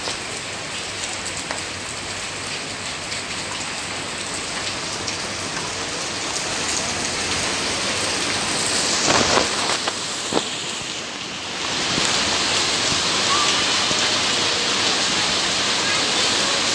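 Rain falling steadily on a flooded, paved yard: an even hiss of drops hitting standing water. It briefly gets louder about nine seconds in, there is a sharp tap just after ten seconds, and the rain grows louder again from about twelve seconds.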